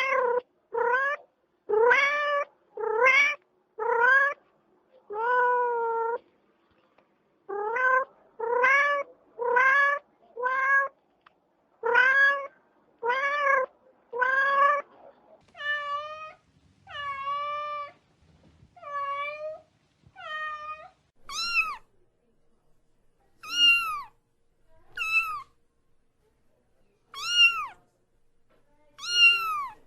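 Cats meowing over and over, mostly one meow about every second in runs with short pauses. From about two-thirds of the way through, the meows are higher-pitched and shorter, each falling in pitch.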